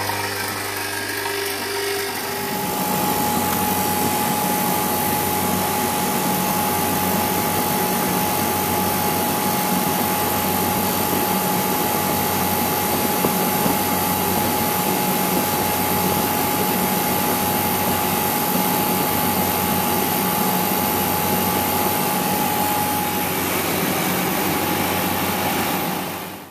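Refrigeration unit with a Copeland 5 hp hermetic compressor starting up about two seconds in and then running steadily: a mains hum over an even rushing noise, with a thin steady tone that fades near the end. It is running after a change from mineral oil to polyol ester oil.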